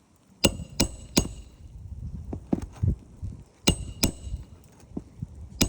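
Hammer striking metal in a roof shingle repair: two runs of three sharp, ringing blows about a third of a second apart, with a few duller knocks between them and one more strike near the end.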